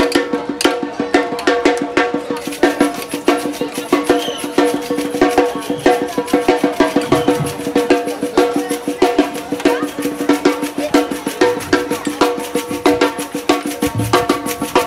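Street percussion band playing large red surdo drums with mallets, together with lighter percussion, in a fast, steady rhythm.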